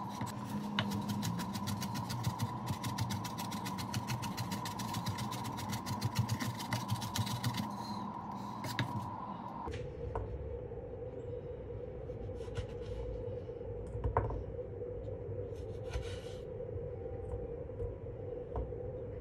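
Chef's knife finely chopping red onion on a wooden cutting board in rapid, even strokes over a steady hum. About ten seconds in the chopping stops, and a few light knocks follow as cherry tomatoes are picked up and put into a ceramic bowl.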